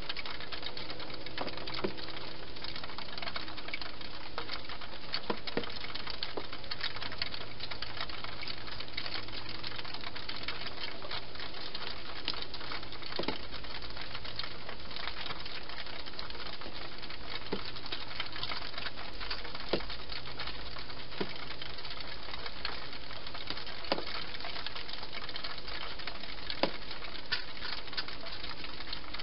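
A hedgehog eating at a feeding bowl: irregular small crunches and clicks over a steady hiss.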